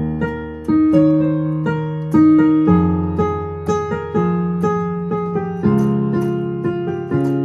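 Piano playing: a right-hand melody moving in a sequence, the same figure repeated at different pitches, over left-hand octaves in the bass, with the bass note changing about every three seconds.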